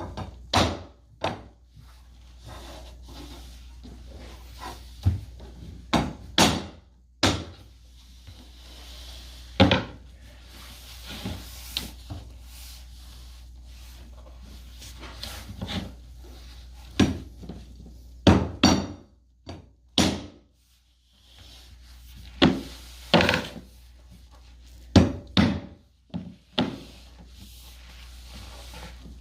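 Pergo laminate flooring planks being knocked into place, closing the joints. The knocks on wood come irregularly, sometimes two or three in quick succession, with pauses between.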